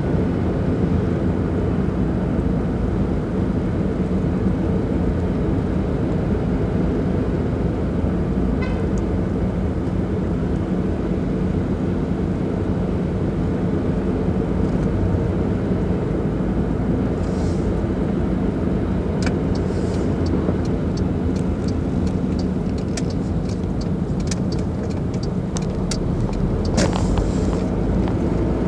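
Steady engine and tyre noise of a car driving slowly through city streets, heard from inside the car, with a run of rapid light ticks through the second half.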